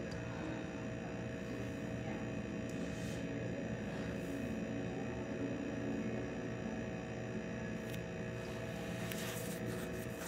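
Steady electrical hum in a quiet room, with a few faint rustles near the end.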